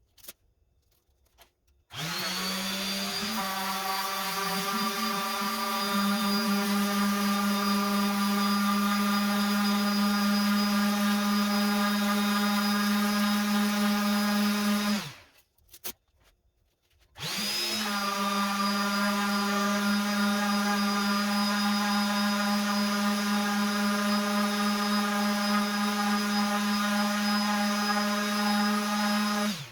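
Electric random orbit sander sanding stained pine, run twice: first with a Diablo sanding disc, then with a 3M Xtract Cubitron II net disc. Each run starts with the motor spinning up, then holds a steady hum over the rasp of the abrasive, and cuts off, with a short silence between the two runs.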